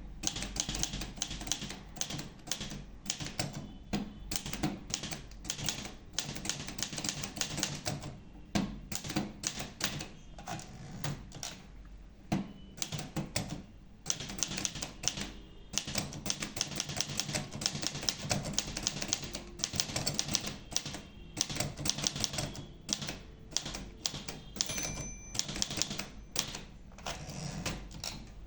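Olivetti Lettera 32 portable manual typewriter being typed on: a fast, uneven run of key strikes with a few short pauses and a brief ringing tone near the end.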